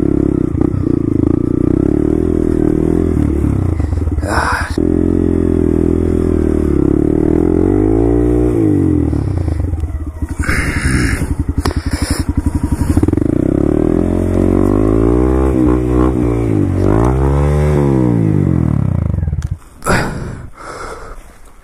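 Honda Grom's 125 cc single-cylinder engine running under load at low speed, its revs rising and falling twice, with a few scraping knocks. The engine cuts out suddenly near the end.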